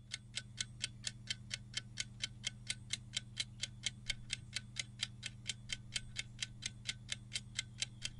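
Quiz countdown-timer sound effect: clock ticking at a steady pace of about four ticks a second, over a low steady hum.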